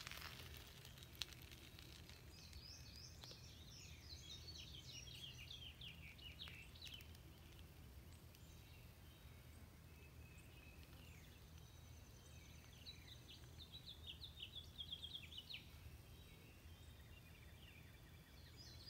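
Faint songbird singing: quick runs of high chirps in two phrases of a few seconds each, over a steady low hum. A single sharp click about a second in.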